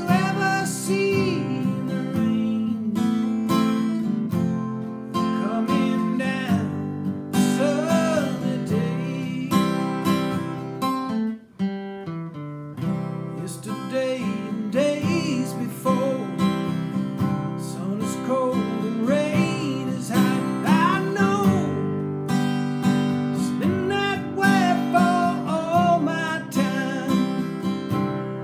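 Acoustic guitar strummed in a steady rhythm while a man sings along, with a short break in the playing about eleven seconds in.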